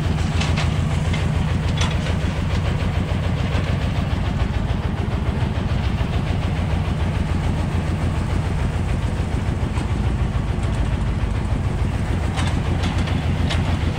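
Heavy construction machinery's diesel engine running steadily with a fast, low, pulsing rumble. A few short clanks sound over it near the start and again near the end.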